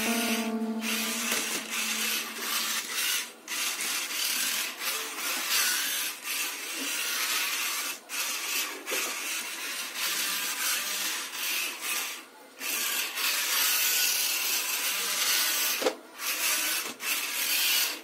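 Small TT plastic gear motors of a robot car whirring as it drives, running in spurts of a few seconds and stopping briefly about a second, three and a half, eight, twelve and a half and sixteen seconds in as it is steered.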